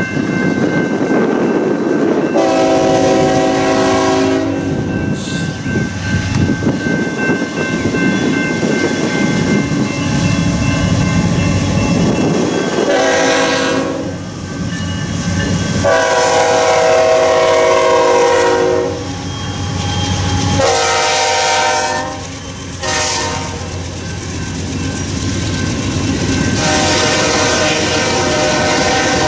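A diesel freight locomotive's multi-note air horn blowing five times, long and short blasts, for a grade crossing, over the steady rumble of the passing locomotives and the clatter of freight car wheels on the rails.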